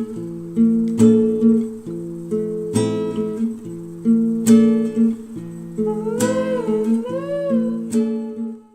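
Background acoustic guitar music: plucked chords struck about once a second, with a few notes that slide up and down in pitch near the end, fading out just before it ends.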